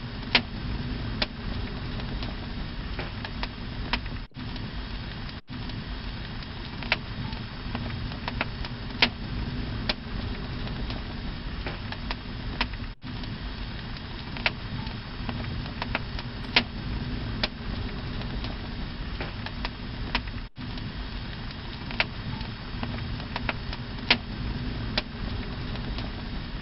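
Flaming torch burning close by: a steady low rush of flame with sharp crackles and pops every second or so.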